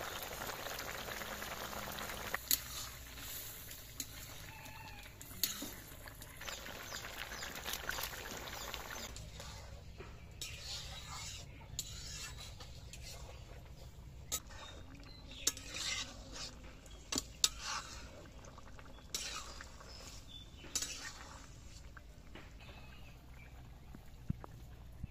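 Fish curry with puishak leaves boiling hard in a metal wok over a wood fire, a steady bubbling sizzle for the first several seconds. Then a metal ladle stirs and scrapes in the wok, with scattered sharp clinks.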